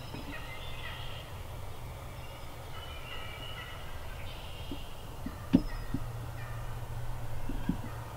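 Wild turkey gobbler gobbling, with one sharp tap a little past the middle.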